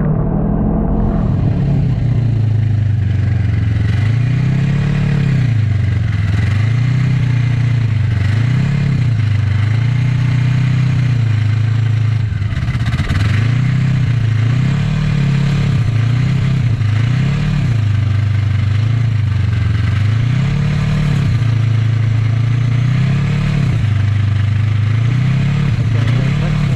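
Yamaha snowmobile engine running under way, its pitch rising and falling every second or two, with a steady hiss over it.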